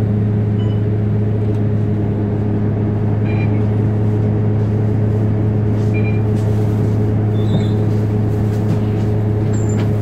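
A steady low machine hum with a few overtones, unchanging in pitch and level, with a few brief high chirps over it.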